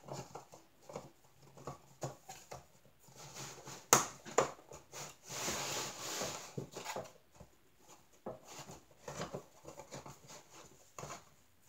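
Panels of a flat-pack wooden tray holder being handled and fitted together: a run of light wood-on-wood knocks and clicks, with a sharp knock about four seconds in and a brief scraping noise just after it.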